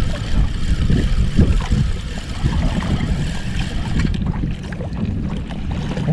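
Wind buffeting the microphone over choppy sea water slapping against a small outrigger boat, an uneven low rumble with a few faint knocks.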